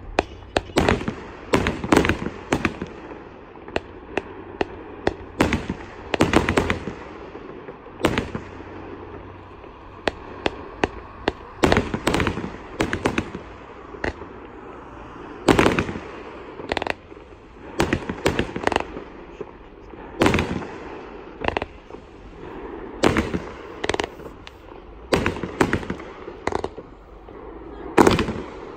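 Fireworks display: sharp bangs at irregular spacing, often several in quick succession, over a continuous hiss, with one of the loudest bangs near the end as aerial bursts go off.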